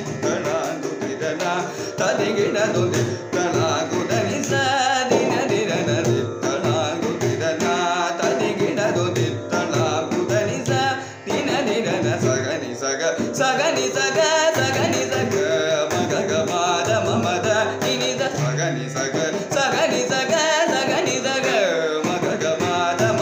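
Male Carnatic vocalist singing a thillana in raga Chandrakauns, set to adi tala. Mridangam strokes and a steady drone accompany him.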